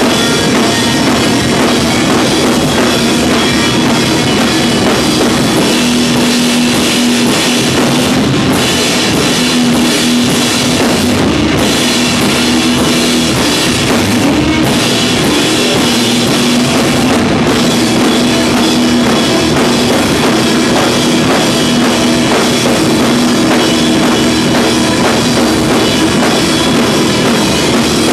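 A rock band playing loud and without a break: electric guitars over a drum kit with cymbals.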